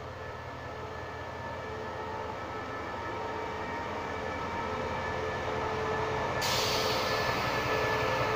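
SRT diesel-electric locomotive passing at close range: a steady engine rumble with a whining tone that grows louder as it goes by. About six and a half seconds in, a loud hiss comes in suddenly on top.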